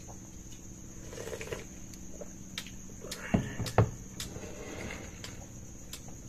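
Crickets trilling steadily in the background, with a few light clinks of plates on a table and two louder knocks about three and a half seconds in.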